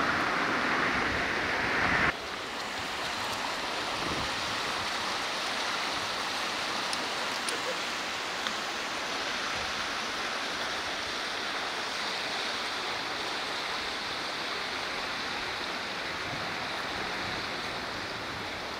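Steady rushing of flowing river water, an even hiss with little low rumble. About two seconds in it drops suddenly to a slightly quieter, thinner rush.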